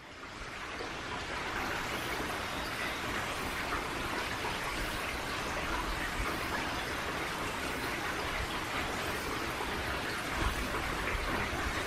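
Steady outdoor ambient hiss, an even noise with no distinct events, with a brief low rumble about ten seconds in.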